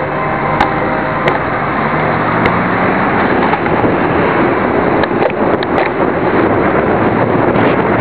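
Wind buffeting a bicycle-mounted camera's microphone, a dense rushing noise that grows louder after about three seconds as the bike picks up speed. In the first seconds a car engine runs close by, with a few sharp clicks.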